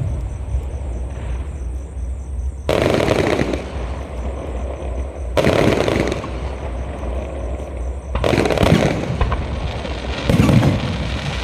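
Aerial firework shells bursting: four loud booms about two to three seconds apart, each trailed by crackling.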